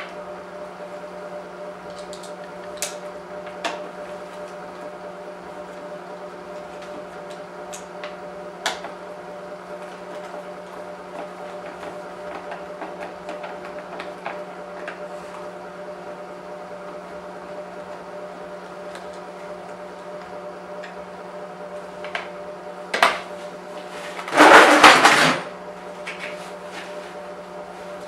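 Small clicks and taps of hand tools working the screws out of a BMW E39 headlight's xenon ballast, over a steady hum. There is a sharp knock near the end, then a loud rattling clatter lasting about a second.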